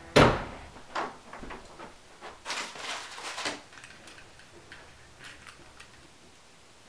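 A sharp thump, then scattered light clicks and clacks, with a quick run of them in the middle, fading to a few faint ticks.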